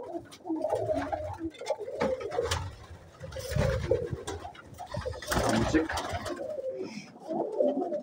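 A loft of domestic pigeons cooing together, many low overlapping coos, with a few louder bursts of wing flapping about halfway through.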